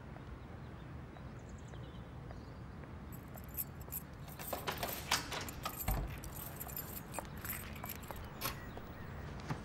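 Keys jangling and a door handle clicking as someone lets themselves in through a front door: a run of light metallic clicks and jingles, with a soft thump about six seconds in.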